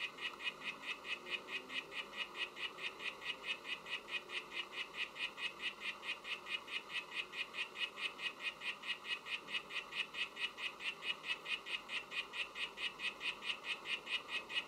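Oophaga sylvatica poison dart frog calling: a long, even train of short, high chirping notes, about four to five a second, without a break.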